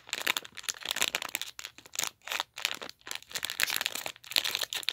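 Crinkling of a LEGO minifigure foil blind bag squeezed and kneaded by fingers, a rapid, irregular run of crackles.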